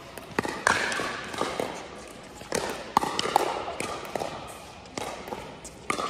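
Pickleball paddles striking a hard plastic ball back and forth in a quick net exchange: a string of sharp pops, several close together about three seconds in, each echoing in a large indoor court hall.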